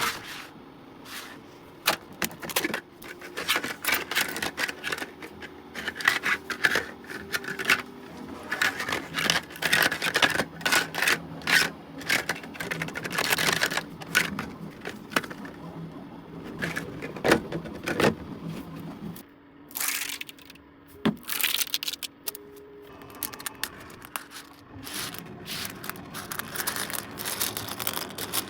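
Dense, irregular clicking, scraping and crackling of hard 3D-printed plastic parts being handled, with a faint low hum under the middle stretch.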